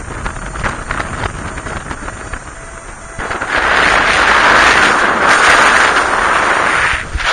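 Wind rushing across the microphone in paraglider flight, growing much louder about three seconds in and easing off near the end.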